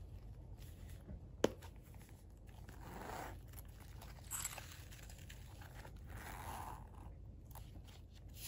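Tsuchiya Kaban leather long wallet being opened and handled. A single sharp click comes about a second and a half in as the snap flap comes undone, followed by soft rustling and scraping of leather, cards and paper as the compartments are fanned through.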